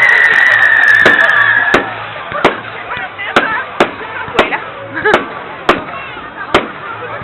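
Fireworks going off: a whistling firework's loud, slowly falling whistle for the first couple of seconds, then a string of sharp bangs and cracks about every half second to second.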